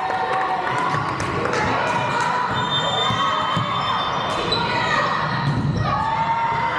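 Busy gymnasium din: many voices calling and chattering, echoing in a large hall, with balls thudding now and then on the wooden floor.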